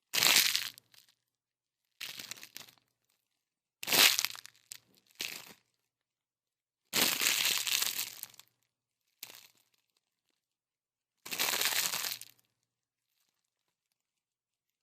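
Plastic being squished and crushed in about seven separate crunching, crackling bursts with silent gaps between them. Most are short, and two last over a second.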